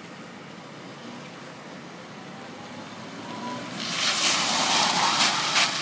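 Dongben mini pickup truck cornering hard close by: its tyres scrub on the asphalt, rising about four seconds in to a loud hiss that stops sharply at the end.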